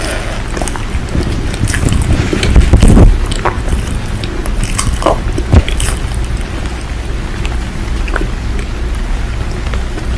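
Irregular crisp crunches, the loudest and deepest about three seconds in, over a steady wash of rain with a low rumble under it.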